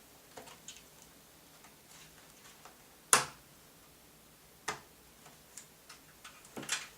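Small hard clicks and knocks of a laptop drive cage holding a solid state drive being handled and seated in its bay: light ticks, one loud knock about three seconds in, and two more near the end.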